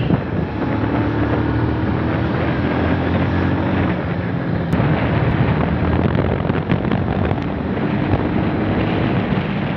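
Onboard sound of a Bajaj Pulsar 150's single-cylinder engine running under way, mixed with heavy wind noise on the microphone.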